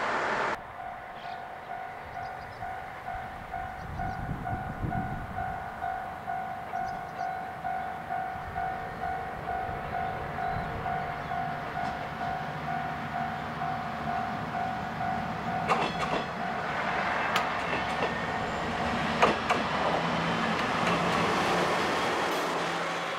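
A level-crossing warning bell ringing steadily about twice a second, then a Tenryū Hamanako Railroad diesel railcar passing close, its wheels clicking over rail joints and its engine humming low in the last few seconds.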